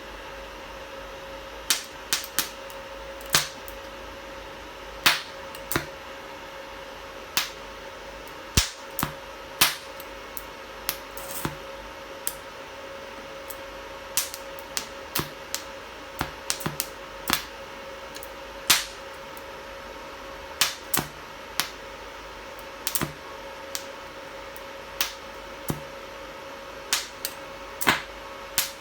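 Electric welding machine under test: a steady hum under sharp snaps that come at irregular intervals, about thirty of them, as the electrode strikes short arcs.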